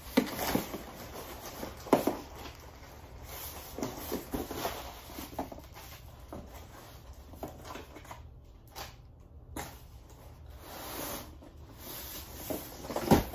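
Large cardboard shipping box being handled and turned over: rustling and rubbing of the cardboard, with a few sharp knocks, the loudest about two seconds in and another near the end.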